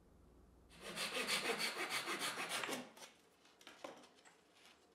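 Fine-toothed Japanese pull saw cutting through a wooden dowel in quick, even strokes, several a second, for about two seconds, then stopping.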